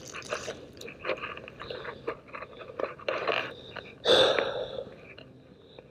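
Irregular crinkling and crunching close to the microphone, with a louder rustle about four seconds in.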